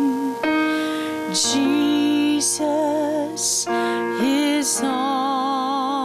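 A woman singing a slow worship chorus with a wavering vibrato over sustained keyboard chords.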